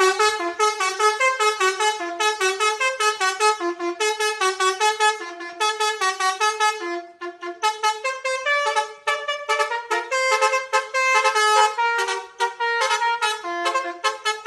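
Basuri telolet bus horn playing a fast melody of short stepped tones, several notes a second. The tune changes to a different pattern about seven to eight seconds in.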